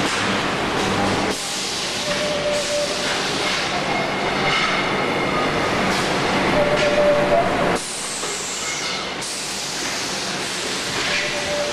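Motorcycle wheel rim roll forming machine running, with a steady mechanical clatter and hiss and short high metallic squeals that come and go. The noise shifts abruptly twice, a little over a second in and again near eight seconds.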